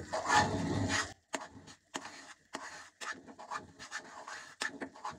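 Metal spoon scraping and stirring along the bottom of a metal kadhai of melting butter: short scrapes and clicks, about three a second. The bottom is scraped to keep the butter from sticking and burning as it cooks down into ghee.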